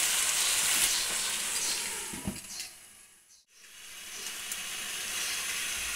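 Moong dal sizzling and simmering in ghee in a pan over a low flame, a steady hiss that fades out almost to silence about halfway through and then fades back in.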